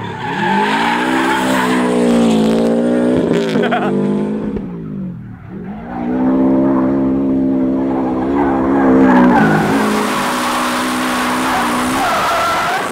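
Subaru Impreza WRX STI rally car driven hard in a drift: the engine revs up and holds high, drops off about four and a half seconds in, then revs up and holds again. The tyres squeal and skid on the pavement in the last few seconds.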